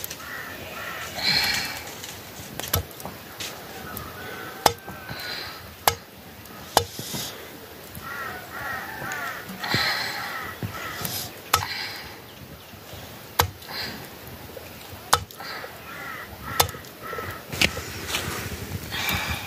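A blade chopping raw meat against a wooden block: about ten sharp, single knocks, a second or two apart. Bird calls come and go between the strokes.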